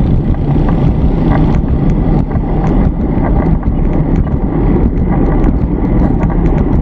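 Wind buffeting the microphone of a handlebar-mounted camera on a moving bicycle, over the rumble of nearby road traffic, with scattered light clicks.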